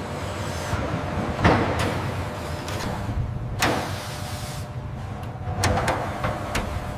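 Aircraft assembly-hangar machinery: a steady low hum with a few sharp mechanical clanks and hisses over it, about a second and a half in, again near the middle and near the end.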